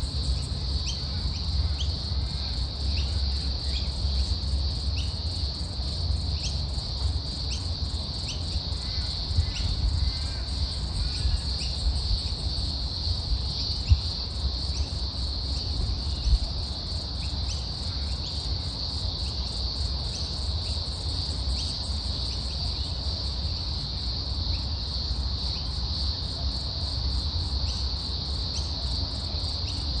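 Steady high-pitched drone of insects in chorus over a low, uneven rumble, with a couple of brief knocks near the middle.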